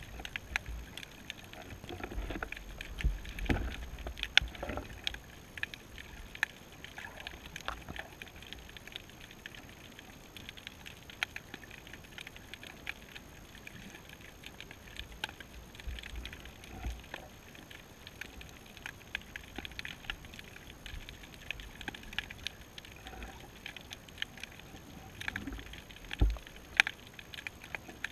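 Underwater ambience on the seabed, heard through the camera's housing: a steady crackle of scattered sharp clicks, with a few dull low thumps between about two and five seconds in and one more near the end.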